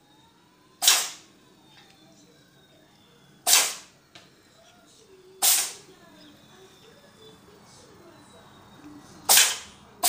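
Domestic cat sneezing four times, each sneeze short and sharp: about a second in, at about three and a half and five and a half seconds, and once more near the end.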